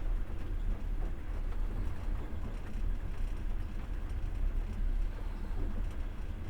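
Passenger train running, heard from inside the carriage: a steady low rumble of the wheels on the rails.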